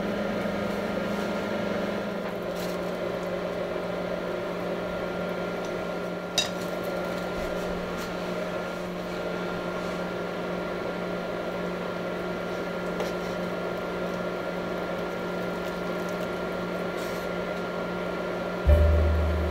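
A kitchen appliance running with a steady hum and a faint high whine, with one small click about six seconds in. Near the end a deep bass note of music starts abruptly.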